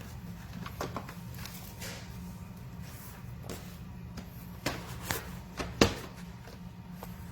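A scattered series of clicks and knocks over a steady low hum, with a cluster of sharper knocks about five to six seconds in, the loudest a single hard knock.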